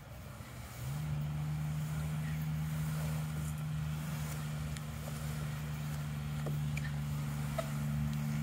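A steady low motor hum of two fixed pitches starts abruptly about a second in and holds without changing.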